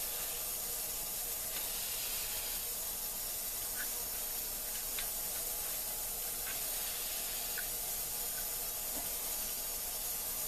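Steady, even hiss with no change in level, with a few faint light clicks scattered through it.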